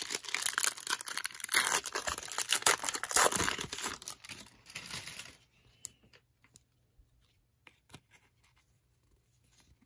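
Foil wrapper of a 1991 Upper Deck football card pack being torn open and crinkled for about five seconds. After that come only a few faint clicks and rustles as the cards are handled.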